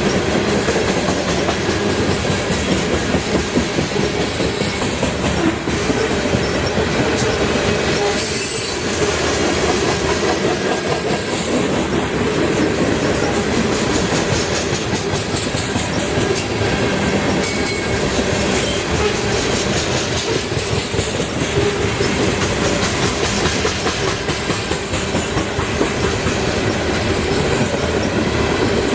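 A train rolling steadily past at close range, its steel wheels clicking over rail joints in a continuous clatter, with a couple of brief high-pitched wheel squeals.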